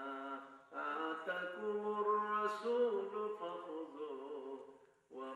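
A preacher's voice chanting a long phrase into the microphones in the melodic, sing-song delivery of a waz sermon, with drawn-out held notes that slide gently in pitch.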